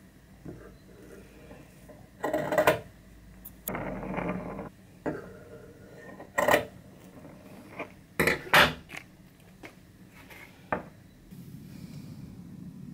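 Metal scissors cutting fabric: irregular sharp metallic snips, with a few longer cuts in between, loudest around the middle. Near the end a soft steady hiss takes over.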